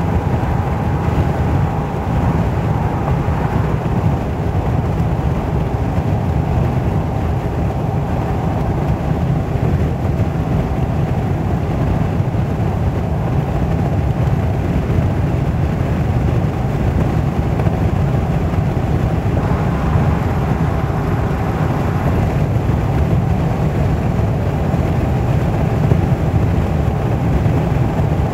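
Car driving at highway speed, heard from inside the cabin: a steady, low rumble of road and engine noise.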